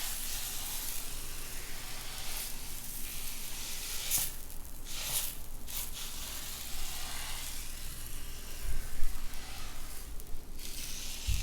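Qita batter sizzling on a hot electric mitad griddle, a steady hiss that dips briefly now and then. A dull thump comes about nine seconds in.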